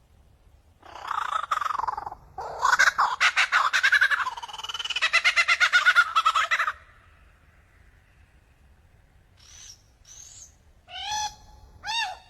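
Lyrebird singing: a harsh rasping call, then a long run of fast rattling, clicking notes. After a pause come a few short high whistles and bending, ringing notes near the end.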